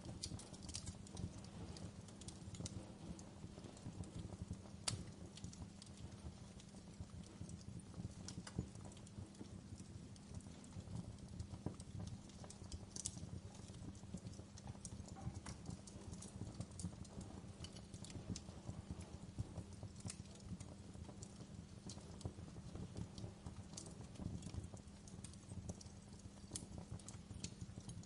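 Wood fire crackling in a fireplace: a steady low rumble of flame under many small, irregular crackles, with a few sharper pops.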